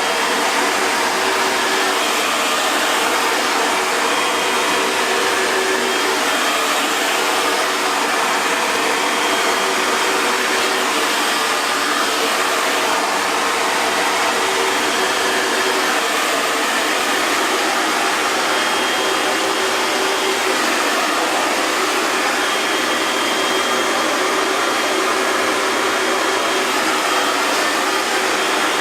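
Hair dryer running steadily: an even rush of blown air with a faint motor hum, unchanging throughout.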